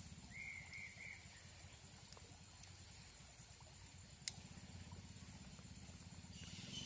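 Faint outdoor ambience with a low steady rumble. There are three quick arched chirps just after the start, one sharp click about four seconds in, and a steady high trill that starts near the end.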